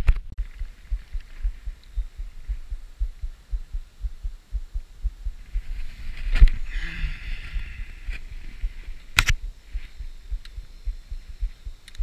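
Low, irregular thumps and rumble against a body-worn action camera's microphone, the handling and buffeting noise of a chest-mounted camera, with two sharp clicks, one about six seconds in and one about nine seconds in.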